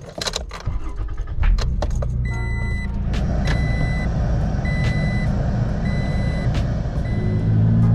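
A car being started: a few clicks, then the engine starts about a second and a half in and runs. A warning chime beeps about once a second over it, and the engine picks up near the end.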